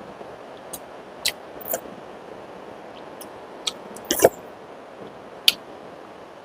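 Eating sounds close to the microphone: about seven short, sharp mouth clicks and smacks while chewing, spread irregularly, with the loudest pair about four seconds in.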